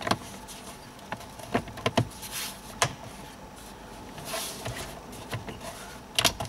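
2008 Nissan Pathfinder's plastic steering-column covers being handled and pressed together by hand: scattered light clicks and knocks with short rubbing scrapes of plastic as the halves are seated and clipped.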